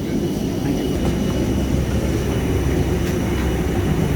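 Steady low rumble of airport ramp machinery around a parked airliner during boarding, with a faint steady high whine above it.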